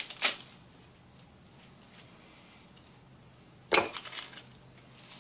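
Lettuce leaves being laid on sandwiches on a plastic cutting board, with a light click just after the start and a sharper clink about four seconds in. The rest is quiet.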